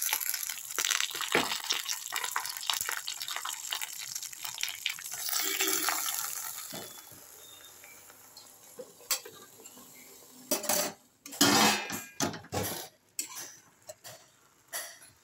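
Washed gongura leaves tipped into a kadai, with dense rustling and clatter for the first several seconds. Then a steel spatula clanks and scrapes against the pan in several loud strokes, about 9 to 13 seconds in, as the leaves are stirred.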